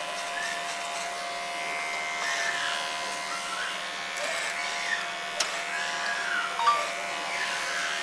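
Cordless electric hair clipper buzzing steadily as it cuts hair held up on a comb (clipper-over-comb), with a sharp click about five seconds in.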